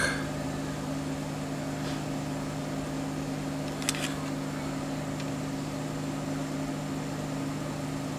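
Steady low hum of running bench equipment, a few low tones held unchanged throughout, with two faint clicks about four seconds in.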